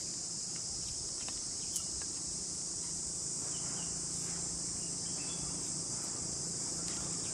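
Steady high-pitched insect chorus, with a few faint short chirps over it.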